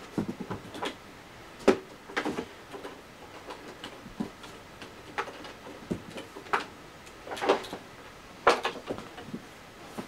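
Irregular clicks, knocks and rustles of a power cord being unwound by hand from the cord hooks of a small Eureka upright vacuum cleaner, the cord and plug tapping against its plastic body and the floor. The vacuum's motor is not running.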